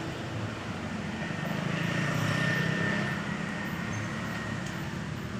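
A motor vehicle passing, its low noise swelling to a peak about halfway through and then fading, over a steady outdoor background hum.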